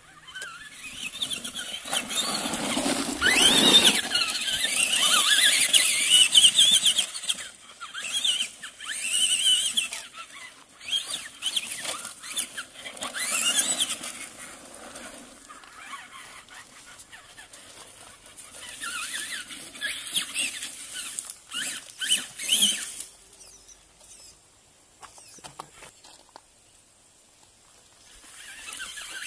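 Electric motor and gears of a Traxxas Rustler XL-5 RC truck whining as it is driven hard over gravel, rising and falling in pitch in repeated bursts of acceleration. It goes quieter in the last few seconds.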